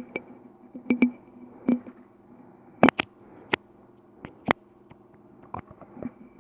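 Scattered sharp clicks and taps of hand tools and small parts being handled while a room heater's fuse is cut out and replaced, over a faint steady high tone.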